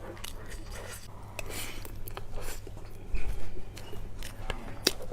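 A person chewing and biting food close to the microphone: irregular wet smacks and sharp clicks, with a louder bite a little after three seconds in.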